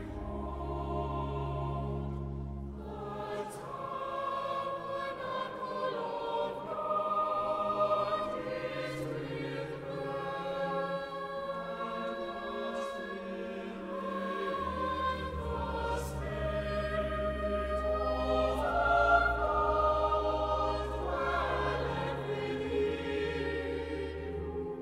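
Recorded church choir singing a sacred anthem over long sustained low organ notes.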